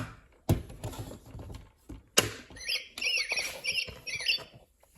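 Plastic toys knocking and clacking a couple of times, then a quick run of high, wavering squeaky chirps.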